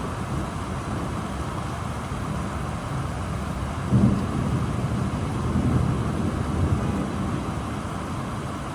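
Steady rain with a low rumble of thunder that breaks in about four seconds in and rolls for a few seconds before fading.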